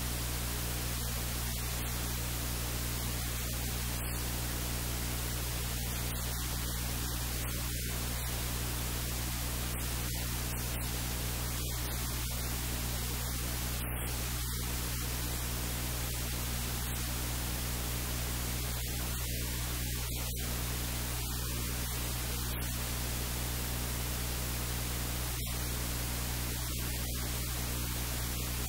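Steady static hiss with a low, unchanging electrical hum, the recording's own noise, and no other sound standing out.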